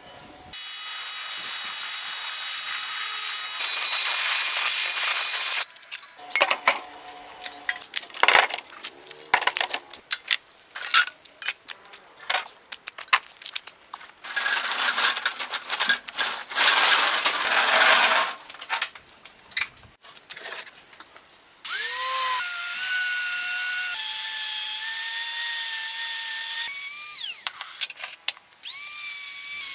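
A handheld electric power tool running in several spells at steady speed, its pitch rising each time it spins up. Between spells come short clicks and knocks of metal parts being handled.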